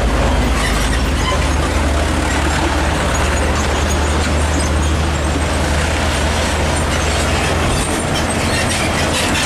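Heavy diesel trucks driving past one after another, a steady low engine drone over tyre and road noise. The low drone thins a little near the end as one truck moves off.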